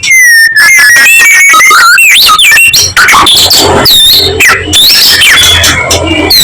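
White-rumped shama (murai batu) singing loudly. It opens with a long clear whistle that falls slightly, followed by quick swooping notes, and from about halfway the song turns into a rapid, varied run of short whistles and chattering phrases.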